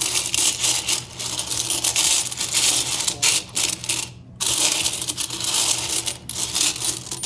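Quarters being raked and stirred by hand in the coin tray of a bulk candy machine: a dense, continuous jingling and clinking of coins, with a short pause about four seconds in.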